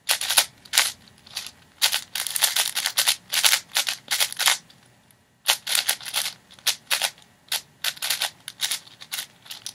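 6x6 speed cube being turned rapidly by hand: fast flurries of plastic clicking and clacking from the layer turns, with a short pause about halfway through.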